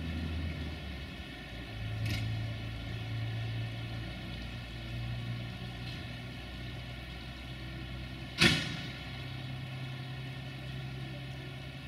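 Electric locomotive standing at the platform, its equipment giving a steady low hum that steps up slightly in pitch about two seconds in. A single sharp bang stands out about eight seconds in.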